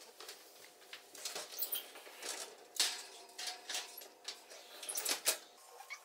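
Kitchen handling clatter as a metal muffin tin goes into a gas range's oven: a series of clicks and knocks as the oven door opens and the tin goes onto the rack, then a louder knock about five seconds in as the door shuts.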